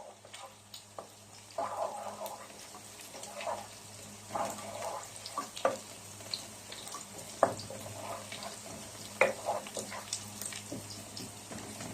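Garlic sizzling in hot oil in a pan, with scattered light clicks and scrapes of a utensil stirring it.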